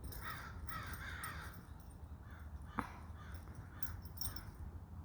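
Crows cawing over and over in a string of short calls, the alarm calls of crows whose nestlings a large bird of prey is eating. A single sharp click sounds about halfway through.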